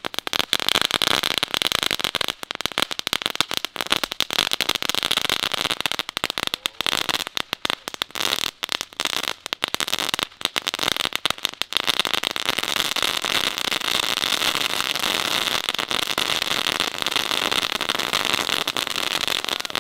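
Crackling-ball ground firework (knetterballen) burning on pavement: a dense, fast crackle over a steady hiss. For the first half it stutters in spurts with brief gaps, then runs steadily.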